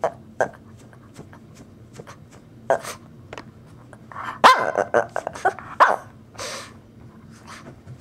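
Shih Tzu giving short, sharp play barks at intervals, with a quick burst of several, the loudest, about halfway through. These are the attention-seeking sounds of a small dog demanding to play.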